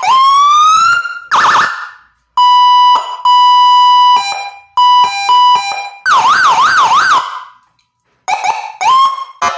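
An electronic siren module playing through a 10-watt oval horn speaker and stepping through its tones. First a rising whoop, then a steady tone that switches to a high-low alternation, then a fast up-and-down wail about six seconds in. Near the end come two short rising chirps.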